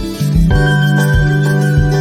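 Background music: a steady beat with plucked guitar.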